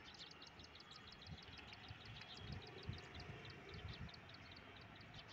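Faint, distant rumble of an approaching electric-hauled express train, with a rapid high-pitched ticking over it, about eight ticks a second.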